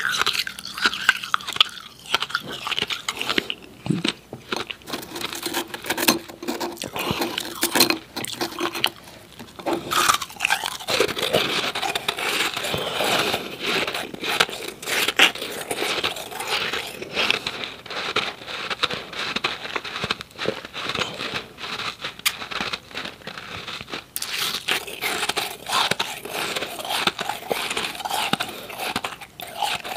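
Close-up chewing of powdery, refrozen ice in the mouth: dense, irregular crunching and crackling with only brief pauses.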